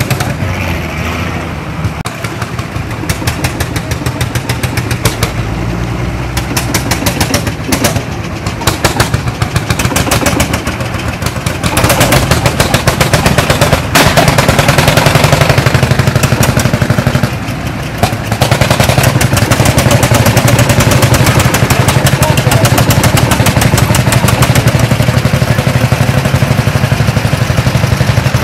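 Lanz Bulldog tractor's single-cylinder hot-bulb two-stroke engine running, a rapid, even chugging of sharp exhaust beats. It gets louder from about twelve seconds in.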